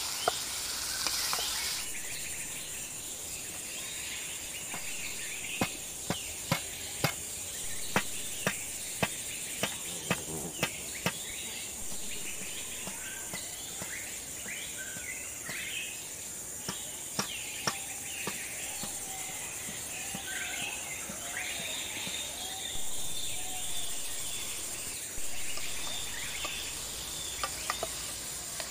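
Steady high insect drone with birds chirping over it. About a fifth of the way in comes a run of about a dozen sharp knocks, roughly two a second, and a few more knocks near the end.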